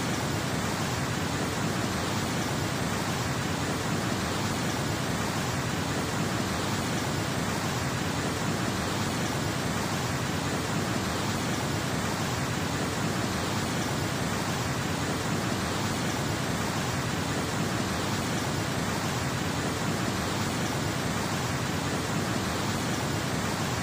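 Fast-flowing muddy floodwater rushing, a steady, even noise with no let-up.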